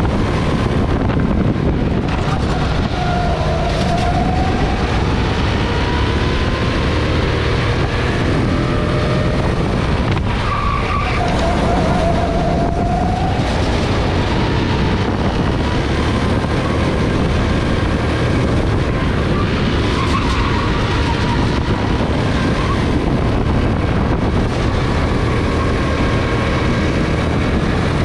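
Go-kart engine at racing speed, heard onboard, its revs dipping and climbing again as the kart goes through corners.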